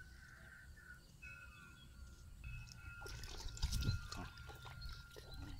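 A plastic bag rustling and crackling as it is handled, loudest about three to four seconds in, over a faint steady high tone.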